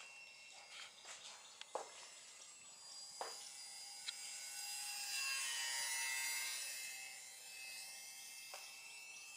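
Radio-control Sport Cub model plane's electric motor and propeller, a buzzy whine that swells as the plane passes close overhead about five seconds in and then fades away.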